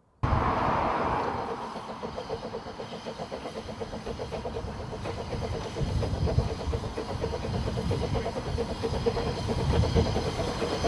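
Fairlie double-engined narrow-gauge steam locomotive Merddin Emrys working a train: a burst of steam hissing at first, then a quick, even exhaust beat over the rumble of wheels on rail, growing louder as it approaches.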